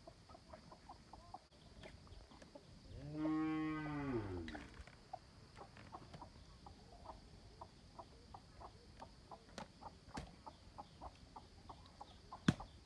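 A cow moos once, a single call of under two seconds that drops in pitch at the end, with faint short chirps of birds scattered throughout. Near the end comes a sharp knock, a blade striking bamboo.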